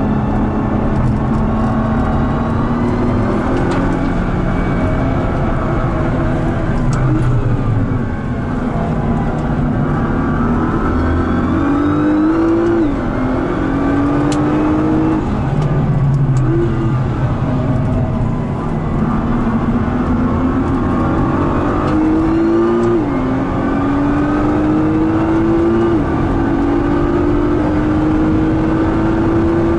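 Nissan R35 GT-R's 3.8-litre twin-turbo V6 heard from inside the cabin, accelerating hard through the gears. Its pitch climbs and drops back sharply at each upshift, several times over, with a brief lull where it lifts off about a quarter of the way in and again a little past halfway.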